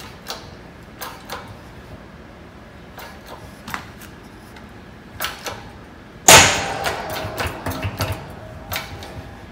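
Hydraulic shop press under load with faint scattered clicks, then about six seconds in a sudden loud bang as the rusted-in propeller mounting bolt breaks free in the hub, followed by ringing and a few more clicks.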